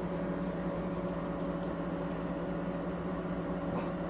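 Steady low hum of a running machine, made of a few constant tones over a faint hiss, with no change in level.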